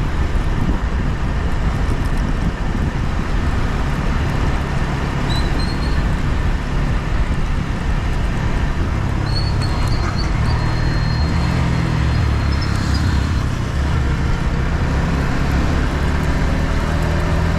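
Yamaha MT-15's single-cylinder 155 cc engine running under way at varying revs, heard onboard with heavy wind rush over the microphone. A thin high whistling tone comes in briefly about five seconds in, then again for several seconds in the middle.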